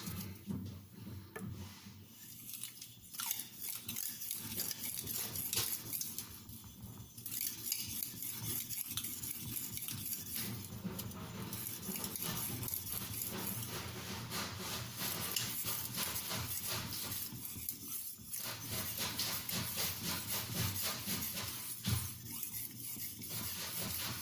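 Victorinox Santoku steel blade stroked back and forth over a mineral-oiled translucent Arkansas oilstone, the fine natural finishing stone: a continuous run of light, hissing scrapes, stroke after stroke.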